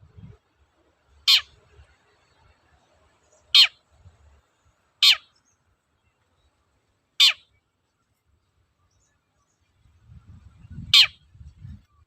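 Long-tailed shrike (cendet) giving five short, sharp calls, a second or two apart, each sweeping quickly down in pitch.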